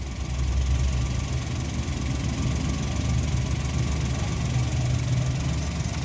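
Car engine idling steadily. The A/C compressor clutch stays disengaged: the high-pressure switch is faulty.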